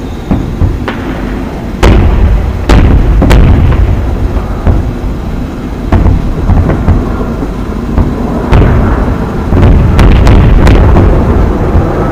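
Aerial fireworks shells bursting overhead: a series of sharp booms and cracks, several in quick succession near the end, over a constant low rumble.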